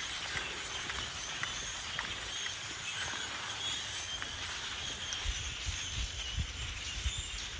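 Walking along a trail outdoors: a steady hiss of outdoor ambience with faint bird chirps, and low thuds of footsteps in the second half.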